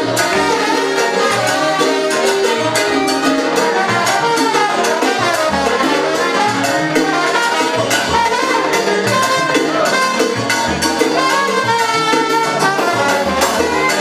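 A live salsa big band playing a steady up-tempo groove: a brass section of trumpets and trombones with saxes, over piano, bass and Latin percussion (congas, timbales, bongo).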